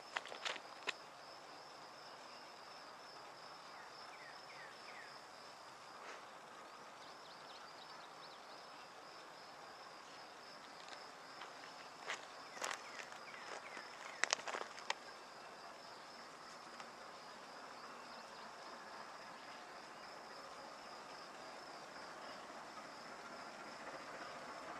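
Quiet outdoor ambience carried by a steady, shrill insect drone that pulses slightly, with a couple of clusters of sharp clicks about halfway through.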